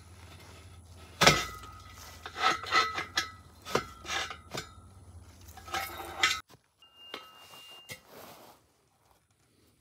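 Steel square tubing knocking against a steel pipe as it is fitted into a slot cut in the pipe: a series of sharp metal clanks with a short ring, the loudest about a second in, the rest spread over the next five seconds. A low hum underneath stops about six seconds in, after which it is much quieter.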